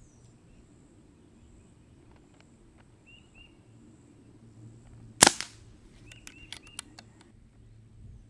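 Brocock Atomic XR .22 regulated PCP air pistol firing one shot about five seconds in: a single sharp crack with a short ring. Its shrouded barrel has no moderator, and the gun is tuned to about 17.5 foot-pounds.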